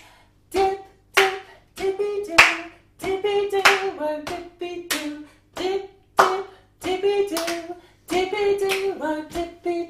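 A woman singing a simple children's song unaccompanied, keeping the beat with hand claps and pats on her legs, about two strokes a second.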